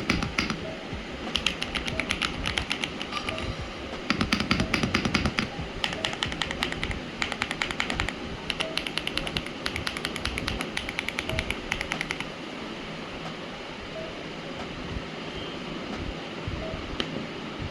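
Rapid typing on a mechanical keyboard with linear switches, fast clicking keystrokes in several quick runs that stop about twelve seconds in. Background music plays throughout.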